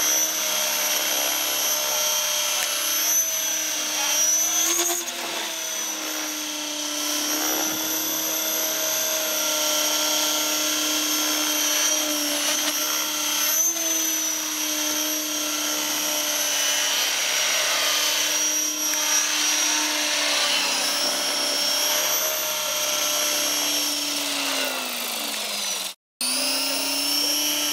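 Align T-Rex 550 electric RC helicopter hovering and manoeuvring low: a steady, high-pitched whine from its motor and spinning rotors, wobbling in pitch briefly a few times. Near the end the pitch sags, the sound cuts out for a moment, and then resumes.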